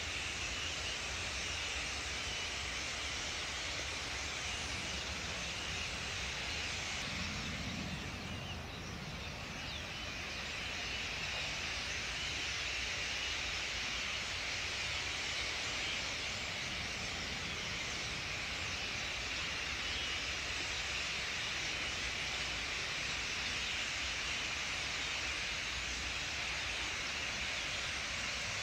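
A large flock of common starlings chattering all at once, a dense, steady wall of high calls that dips briefly about a third of the way in, then builds again.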